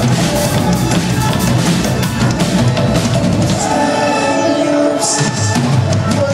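Live electronic dance band playing through a PA: a drum kit with kick and snare drives a synthesizer groove. About four seconds in, the kick drum drops away and held synth chords carry on.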